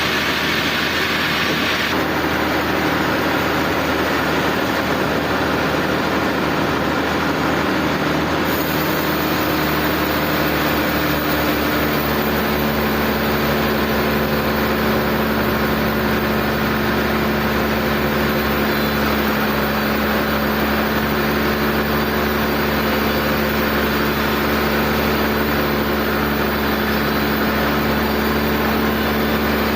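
Sawmill machinery running steadily, a continuous engine-like hum with a steady tone whose pitch settles a little lower about ten to twelve seconds in.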